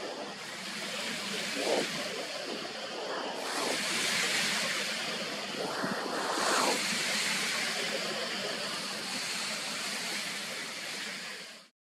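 Steady rushing noise of lake waves washing in, swelling a few times, then cutting off abruptly near the end.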